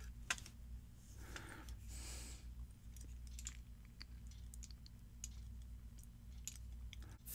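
Faint, scattered small metal clicks and ticks of lock pins and a pin-tumbler lock core being handled while the lock is reassembled. A soft rustle comes about two seconds in, and a low hum runs underneath.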